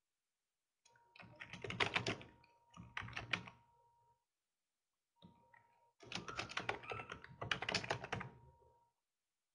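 Typing on a computer keyboard, two short runs of rapid key clicks with a pause between them.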